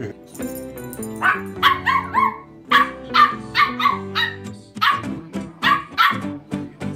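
Small puppy yipping and barking in a rapid series of short, high yaps, starting about a second in, over background music.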